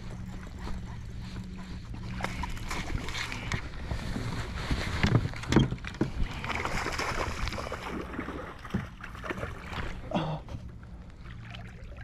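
Water splashing and sloshing beside a kayak as a hooked smallmouth bass fights at the surface, with a few sharp knocks about five to six seconds in. A low steady hum runs under the first few seconds.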